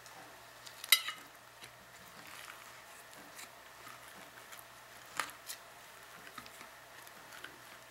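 Corn husk crackling and rustling as a steamed tamal is peeled open on a ceramic plate, with a sharp click about a second in and another a little after five seconds.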